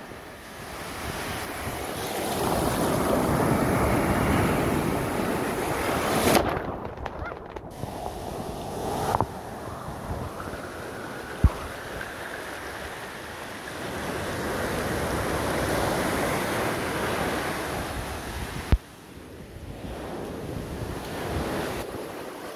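Storm surf breaking on a pebble beach and washing up over the stones, swelling twice into a long rush of water. A few sharp knocks cut through it.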